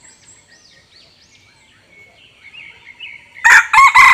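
Faint high bird chirps, then about three and a half seconds in a rooster starts crowing loudly, a broken multi-part crow.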